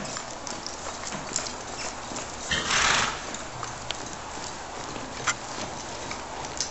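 A horse's hooves striking the dirt footing of an indoor arena, an uneven run of knocks as the horse is worked up toward a trot. About three seconds in comes a short hissing rush, the loudest sound.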